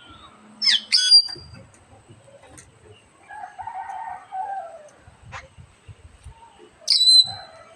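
A bird locally called bilbong giving loud, sharp, high calls that sweep downward: two in quick succession about a second in, and another near the end. A quieter, lower, drawn-out call sounds in between.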